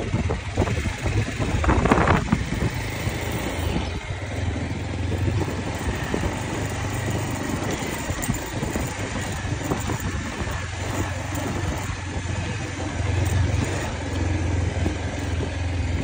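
Motorcycle engine running at a steady pace while riding, a low hum under a rush of wind and road noise, with a louder gust about two seconds in.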